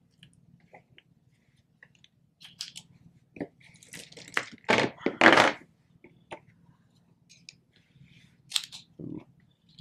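.380 ACP cartridges being pressed one at a time into a Glock 42 magazine fitted with a +2 extension: small clicks and scrapes of brass against the magazine lips and follower, with louder handling noise about five seconds in.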